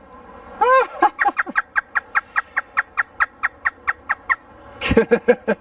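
African grey parrot mimicking a hysterical laugh. It gives a rising-and-falling whoop, then a fast run of short cackling "ha" notes, about six a second, that stops after some three seconds.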